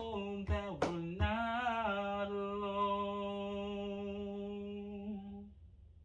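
A man hums the closing melody with his mouth closed, settling onto one long held low note that fades out about five and a half seconds in. Two cajon strikes sound in the first second and a half.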